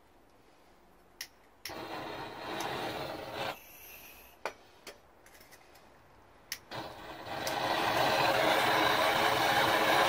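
Handheld gas blowtorch being lit: sharp igniter clicks, a short burst of hissing gas about two seconds in that dies away, more clicks, then about seven seconds in the torch catches and burns with a steady, growing hiss.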